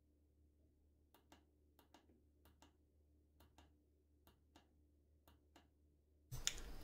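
Faint clicks of the push buttons on a Vaillant ecoTEC gas boiler's control panel as the settings menu is scrolled: six press-and-release pairs, roughly one a second. Near the end a steady hiss starts.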